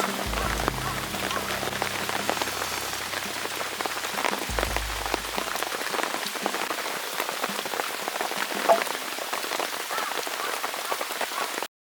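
Heavy rain falling steadily as a dense hiss of countless drop strikes, with a low rumble twice and one sharp click about three-quarters of the way through. The sound cuts off suddenly just before the end.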